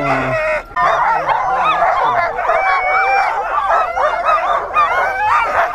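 Many sled dogs yelping and barking together, a dense chorus of overlapping high, bending calls that sets in just under a second in and carries on without a break.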